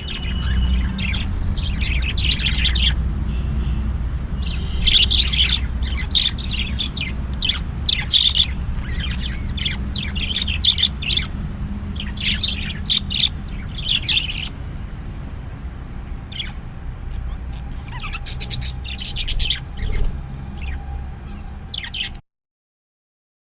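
Budgerigars (budgies) chirping and chattering in quick, repeated short calls over a steady low hum. The sound stops abruptly near the end.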